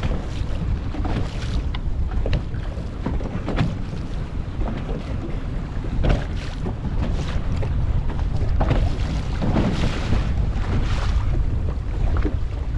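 Wind buffeting the microphone in a steady low rumble, over water lapping, with short scattered slaps and knocks throughout.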